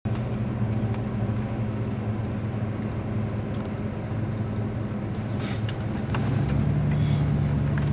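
Diesel engine of a motor grader running steadily as the machine travels on a dirt road, with a few light rattles. About six seconds in, the engine hum shifts to a lower, steadier and slightly louder drone.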